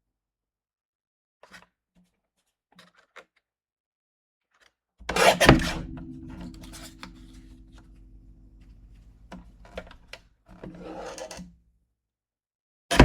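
Paper trimmer cutting cardstock: a sharp clack about five seconds in, then the blade scraping along the paper for several seconds and a shorter second scrape. Another clack comes near the end.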